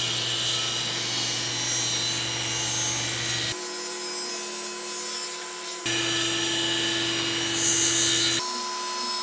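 Table saw running and cutting a taper along a cherry leg held in a tapering jig: a steady motor hum under the sound of the blade ripping through the wood, changing abruptly three times.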